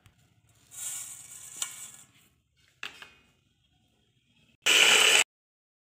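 Granulated sugar pouring into egg whites in a stainless-steel bowl, a grainy hiss lasting about a second and a half. A single tap follows. Near the end comes a loud half-second burst of noise that cuts off suddenly.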